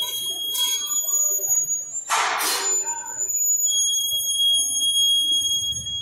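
Loud shop air-tool noise during exhaust work: a high, steady whine of several pitched tones, broken by short bursts of hissing noise.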